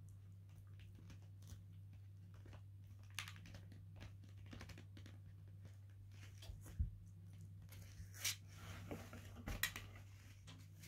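A teething rough collie puppy gnawing a rawhide bone: faint scattered crunching and clicking, denser and louder in the second half, with a soft thump about two thirds of the way through.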